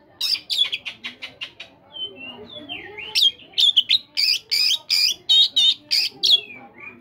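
Oriental magpie-robin singing: a loud, rapid series of sharp whistled notes. About two seconds in it drops to a softer run of gliding warbles, then the loud notes come back in quick succession.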